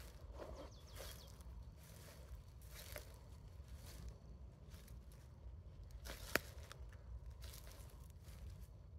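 Faint, irregular crunching footsteps over rough ground, with one sharp click about six and a half seconds in.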